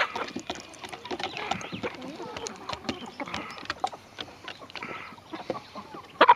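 Chickens pecking corn kernels off wooden boards: a quick, irregular run of sharp beak taps on the wood, with soft clucking calls from the hens among them.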